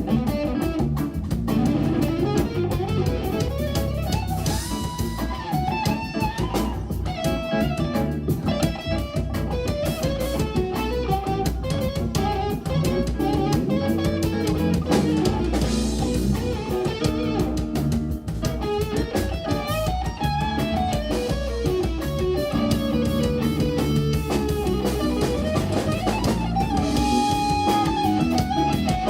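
Live instrumental rock-fusion band playing: electric guitar lines over bass guitar and drum kit.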